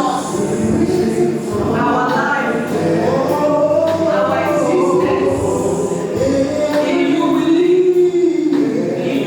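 Group singing, a choir of voices holding long, gliding sung notes, in the manner of gospel worship.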